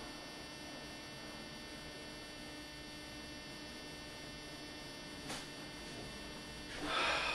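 Steady electrical mains hum with a faint hiss, broken by one sharp click about five seconds in and a short rustling noise near the end.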